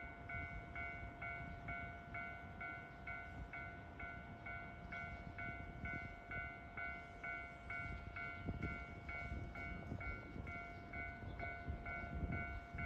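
Railway level-crossing warning bell ringing steadily, an electronic two-tone ding about two and a half times a second, over a steady hum and a low rumble.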